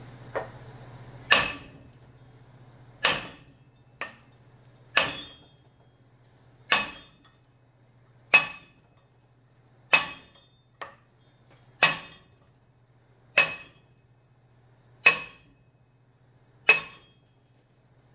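Hammer blows driving the gland of a John Deere hydraulic cylinder down the piston rod toward the barrel: ten sharp metallic strikes with a short ring, about one every 1.7 seconds, with a few lighter taps in between.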